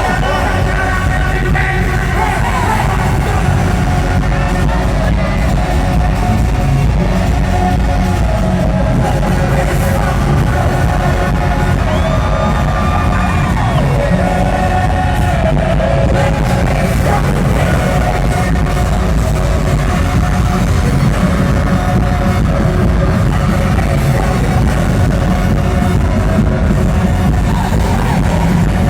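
Loud live pop music over a venue's sound system, with heavy bass and singing throughout.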